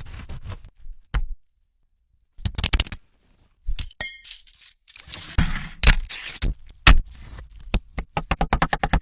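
Food-prep sounds: clinks, scrapes and knocks of kitchen utensils, with a ringing glassy clink about four seconds in and a quick run of even taps, about seven a second, near the end.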